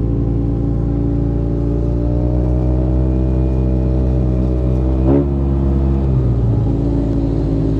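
Motorcycle engine running under way, its pitch rising as the revs climb between about two and three and a half seconds in, with a brief sharp sound about five seconds in before the revs settle a little lower.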